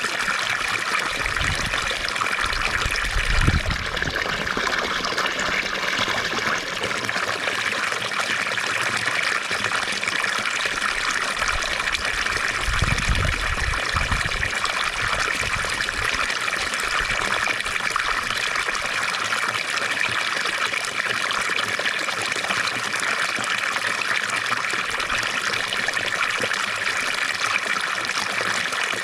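Fountain water trickling and splashing steadily, with brief low rumbles a few seconds in and again about halfway through.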